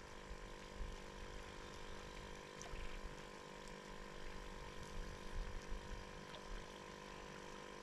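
Faint steady hum made of several held tones, with a low rumble beneath and a few faint ticks.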